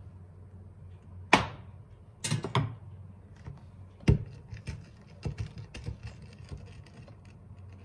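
Glassware knocking as flour is scooped and tipped from a glass into a glass bowl of cake batter: a few sharp clinks in the first half, the loudest about a second and a half in, then a run of light ticks and taps.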